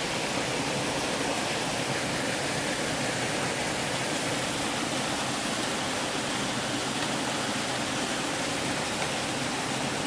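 Small mountain waterfall and creek rushing steadily.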